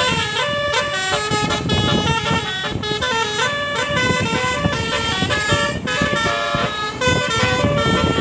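Tour bus's roof-mounted multi-trumpet musical air horn (telolet) playing a Minang tune, its notes stepping quickly from pitch to pitch in a continuous melody.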